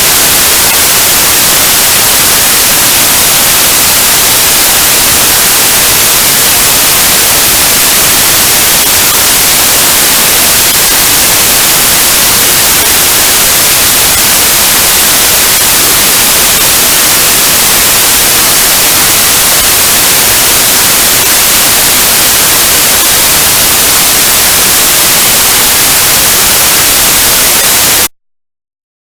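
Very loud, steady hiss of static (white noise), even and unchanging, that cuts off abruptly about a second before the end into silence.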